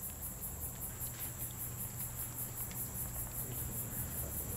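Crickets chirping in rapid, evenly spaced pulses, a night ambience, over a low steady hum, heard played back through a television speaker.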